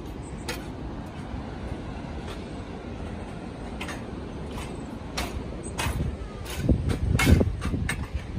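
Footsteps on steel grated stair treads: irregular metallic knocks, one every second or so, over a steady low rumble. They become quicker and louder about five seconds in.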